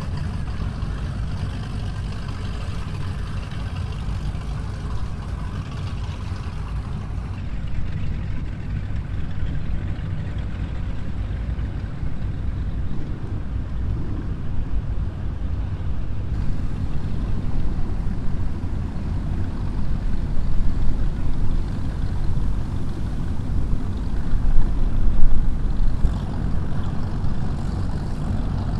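Big performance-boat engines rumbling at low speed, a deep uneven burble that grows louder over the last several seconds.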